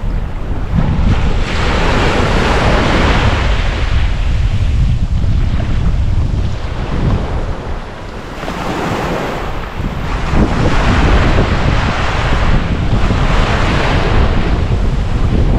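Ocean waves washing in and out on the beach, the rushing hiss rising and falling in surges with a lull about halfway through. Wind buffets the microphone underneath as a steady low rumble.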